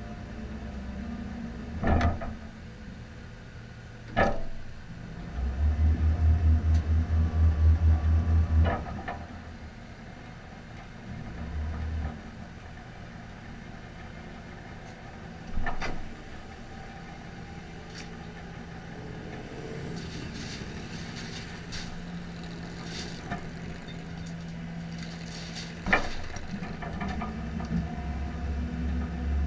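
Vehicle engine idling with a low rumble that swells heavily twice for a few seconds, as under load or revving, with several sharp knocks or clanks in between.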